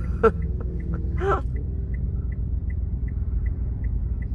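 Inside a car's cabin in slow traffic: a steady low engine and road rumble, with a turn signal ticking evenly at a little under three ticks a second. Two short vocal sounds come in the first second and a half.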